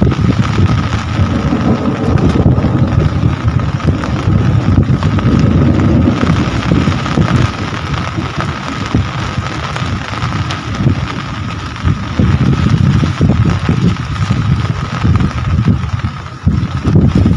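Rain falling steadily, an even hiss over a heavy, uneven low rumble, with a faint steady high tone running through it.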